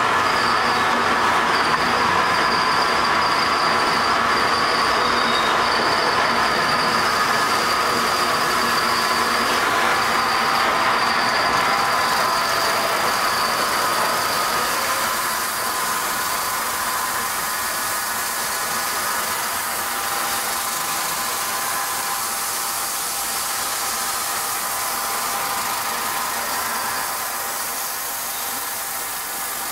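Automatic turning sander running: a steady machine noise with several held tones and a high whine that fades out about twelve seconds in, after which the sound eases a little.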